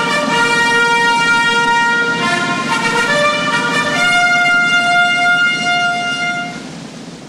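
A trumpet sounding a ceremonial bugle call: a run of held notes stepping between a few pitches, ending on a long, higher note held for about two and a half seconds that then fades away.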